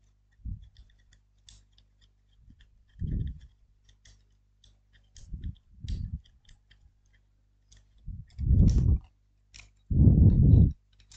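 Handling noise from assembling a small laser engraver: faint small clicks of screws and parts being fitted, with several dull low thumps as the wooden base and frame are moved, the loudest two in the last three seconds.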